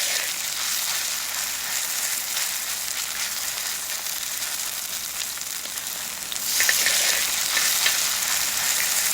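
Jang-tteok batter sizzling and crackling as it fries in a pan of oil. The sizzle swells louder about six and a half seconds in.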